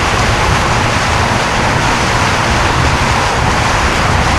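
Steady rush of wind and water around a jonboat running at speed under its 48-volt Elco electric outboard, with a faint steady whine over a low rumble.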